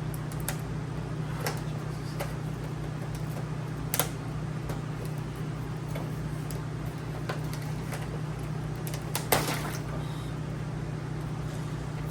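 Scattered clicks and knocks of tools and parts being handled while the crashed RC plane's nose is taken apart, two sharper knocks standing out, over a steady low hum.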